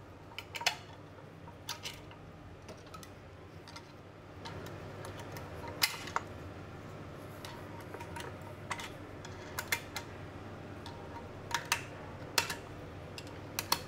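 Scattered sharp metallic clicks and taps as a snap ring is worked into its groove inside an A6MF1 automatic transmission case, over a steady low hum that gets a little louder about four seconds in.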